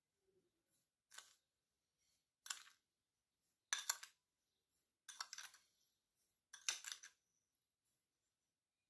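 Faint kitchen utensil sounds during pastry or lemon cream preparation: five short, sharp strokes, roughly one every second and a half.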